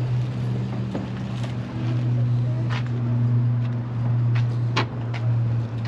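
A running engine: a steady low hum with a few faint clicks over it.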